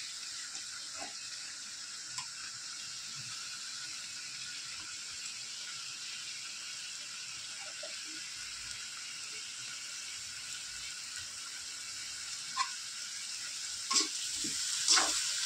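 Raw chicken pieces sizzling steadily in hot oil in a metal kadai as they are sautéed. Now and then a perforated metal ladle scrapes and clinks against the pan as it stirs, several times near the end.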